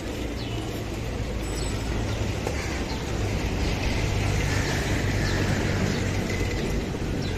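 Street ambience: a steady low rumble of traffic that swells a little in the middle, with a few faint, short, high bird chirps over it.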